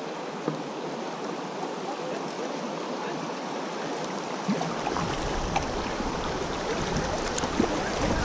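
River current rushing and splashing around a kayak hull as it runs into rough water, growing slowly louder. About halfway through, a low rumble of wind on the microphone comes in.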